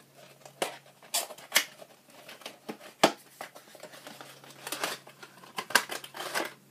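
Product box being opened by hand: irregular rustling and scraping of the packaging with sharp clicks, the sharpest about three seconds in and another near six seconds.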